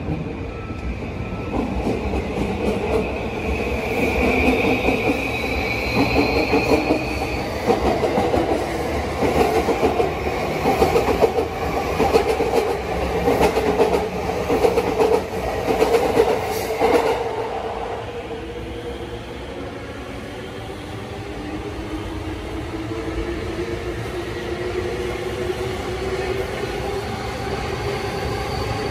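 Yamanote Line E235-series electric train pulling away: its traction motors whine upward in pitch as it speeds up, and its wheels clatter over the rail joints, dying away after about 17 seconds. Near the end a Keihin-Tohoku Line E233-series train comes in close with a lower, rising motor whine.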